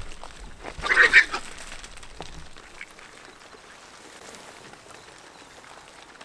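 Feral hog giving one loud, harsh squeal about a second in, among the herd feeding at the feeder.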